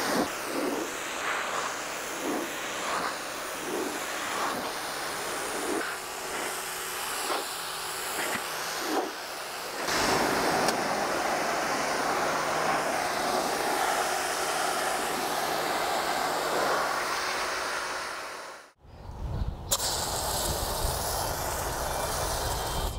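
Pressure washer jet hissing against the side of a pickup truck and its running board, swelling and fading as the wand sweeps. The spray breaks off briefly near the end and then starts again.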